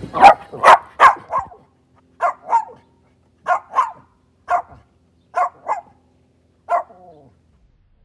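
Small long-haired chihuahua-mix dog barking: a quick run of four barks, then short barks mostly in pairs with pauses between.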